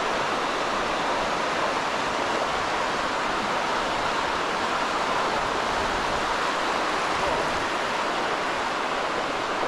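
Shallow surf washing in over a flat sandy beach, a steady even hiss of foaming water.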